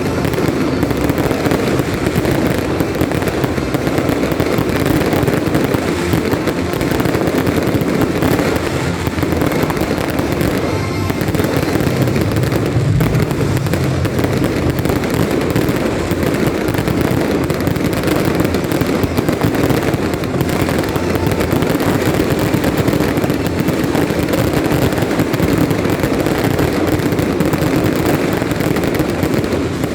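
Fireworks going off in a dense, continuous barrage of rapid crackles and bangs with no pauses.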